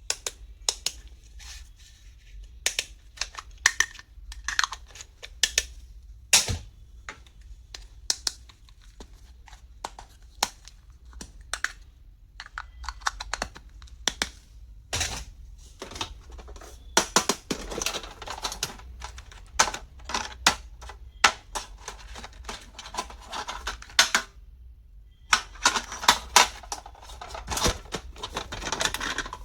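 Plastic stationery and its packaging being handled and unpacked by hand: irregular clicks and taps, with busier stretches of clatter about halfway through and again near the end, and a short pause just before the last stretch.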